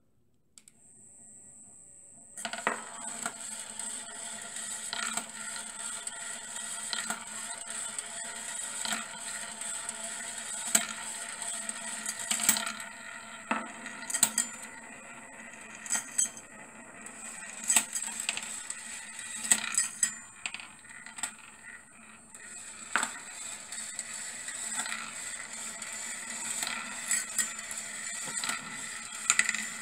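Steel-ball kinetic marble machine starting up and running: a small motor turns the ball lift with a steady high whine, while steel balls roll along brass wire rails and around a wooden funnel bowl, clicking and clinking against each other and the track. The whine starts about half a second in and the ball clatter about two seconds later.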